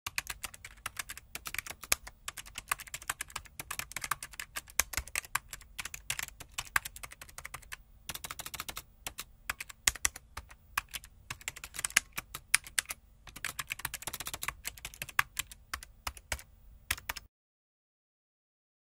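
Rapid typing on a computer keyboard: a fast, uneven run of key clicks with a few short pauses. It stops abruptly near the end, leaving dead silence.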